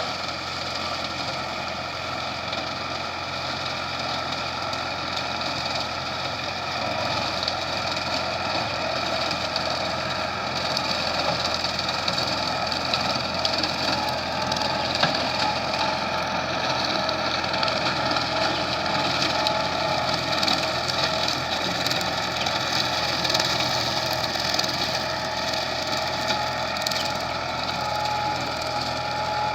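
Valmet 85 ID tractor's diesel engine running loud and steady while driving a rotary mower, growing a little louder about a quarter of the way in.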